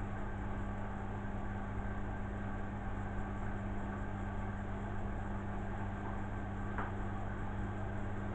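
Beko front-loading washing machine running with a steady low hum, with a faint click about seven seconds in.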